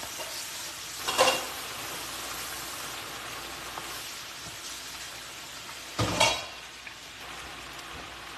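Chicken wings deep-frying in a pot of hot oil, a steady bubbling sizzle. Two brief louder knocks stand out, about a second in and again about six seconds in.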